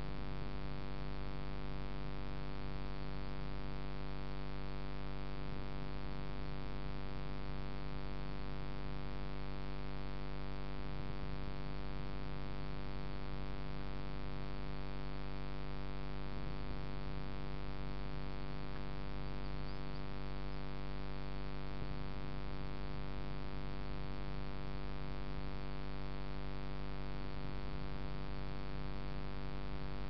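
Steady electrical hum, buzzy with a dense stack of evenly spaced overtones, unchanging.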